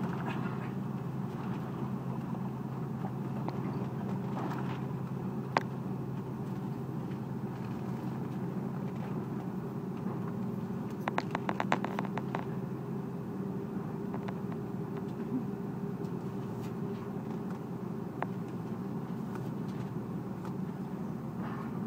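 Steady engine hum of an Airbus A330-300 taxiing at low thrust, heard inside the cabin. A single click comes about five and a half seconds in, and a quick run of about eight clicks about eleven seconds in.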